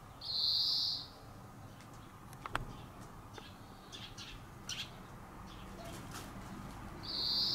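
Two short, high, buzzy bird calls about seven seconds apart, with a few faint ticks and rustles in dry pine-needle litter between them.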